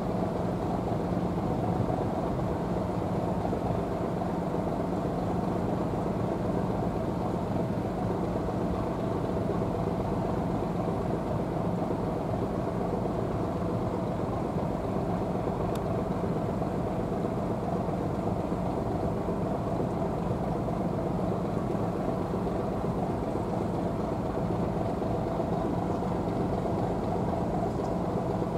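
Floating crane barge's engine idling: a steady, unchanging drone.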